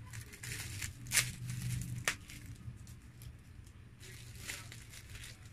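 Plastic cutlery wrapper being crinkled and torn open by hand, with sharp crackles about one and two seconds in, over a low steady hum.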